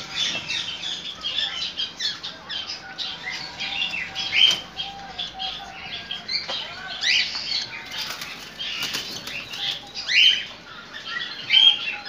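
Caged cockatiels calling over and over in short, rising chirps, a few louder than the rest, with a brief flurry of wing flapping in the second half.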